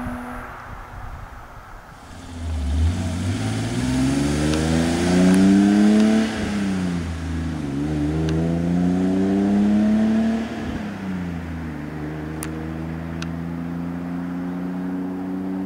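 Straight-six car engine accelerating hard through the gears of a manual gearbox. The revs climb from about two seconds in, drop sharply with an upshift around six and a half seconds, and climb again. A second upshift comes around ten and a half seconds, after which the engine settles into a steady cruise.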